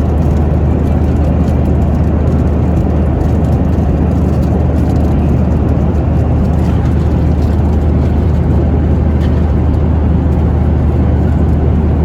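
Steady low roar of a Boeing 737-900ER's jet engines and airflow heard inside the passenger cabin, with a strong deep hum and no change in pitch or level.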